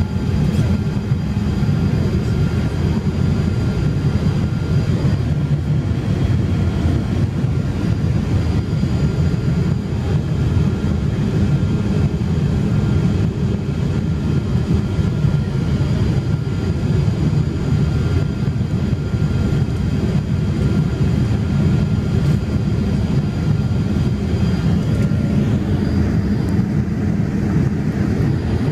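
Steady low cabin noise inside a Boeing 787 Dreamliner in flight: engine and airflow noise without a break, heard shortly after takeoff while the aircraft is still climbing out at low speed. A faint steady whine sits over the low noise.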